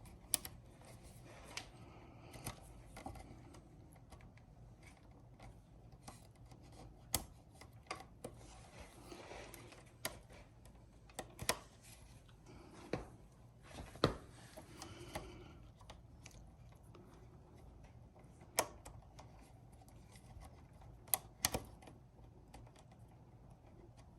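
Faint, irregular small clicks and taps from hands fitting clips onto an e-bike's hydraulic brake hose.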